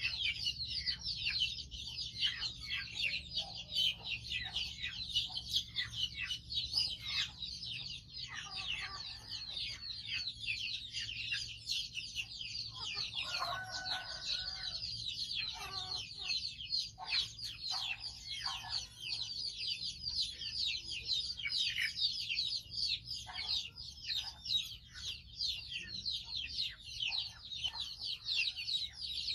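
Many birds chirping densely and without a break, in rapid short falling peeps, with a lower call around 13 to 15 seconds in.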